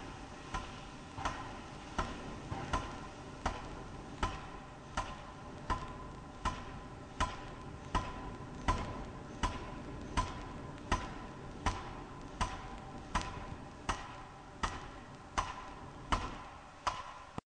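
Pneumatic forging hammer running, striking at a steady rhythm of about one and a half blows a second. Each blow ends in a short metallic ring, over a constant low machine noise.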